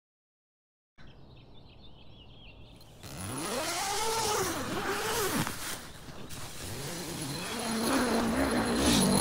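A vehicle engine, likely a motorcycle, starts about a second in and revs up and down several times. Near the end it settles into a steadier run, under a rushing noise.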